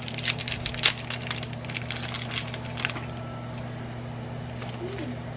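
Small plastic packaging crinkling and crackling in the hands as it is opened, for about three seconds, with one sharper crack about a second in. A steady low hum runs underneath.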